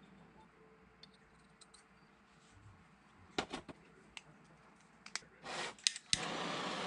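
Small clicks and taps of tins and fittings being set down, then a brief hiss and a couple of sharp clicks as a hand gas torch is lit. About a second before the end it catches and burns with a loud steady hiss, ready to heat fluxed copper fittings for soldering.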